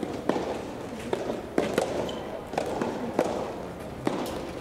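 Soft tennis rally: the soft rubber ball is struck by rackets and bounces on the court, giving a string of sharp pops at uneven intervals, roughly every half second to second.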